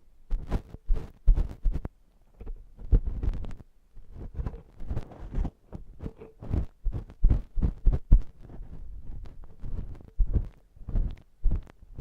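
Close-miked ear-cleaning tools scraping and rubbing inside a silicone ear model, giving a quick, irregular run of scratchy strokes with deep thuds.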